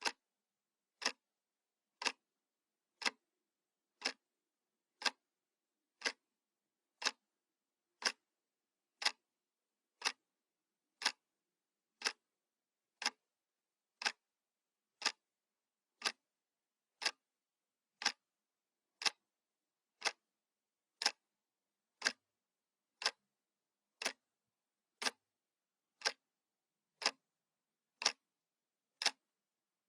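Analog clock ticking, one sharp tick each second, evenly spaced.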